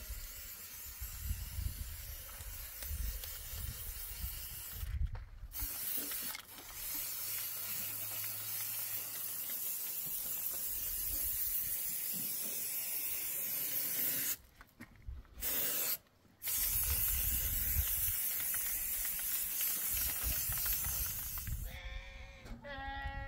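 Spray paint hissing onto a concrete-block wall in long sprays that cut off sharply a few times, with a gap of about two seconds past the middle. A goat or sheep bleats near the end.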